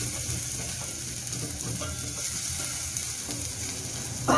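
Coarse garlic and green chili paste sizzling as it fries in hot sesame oil with sesame seeds, a steady hiss; a short louder sound breaks in right at the end.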